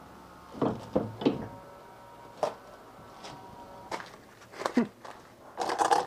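Scattered hard knocks and thunks, about half a dozen, as a vintage Seagull outboard motor is handled against a plastic wheelie bin, with a rustling noise near the end; the motor is not running.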